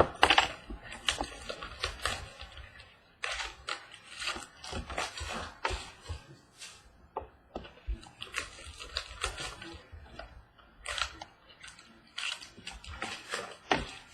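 Trading-card box packaging being handled and opened, with irregular crinkling, crackling and clicking, loudest at the start.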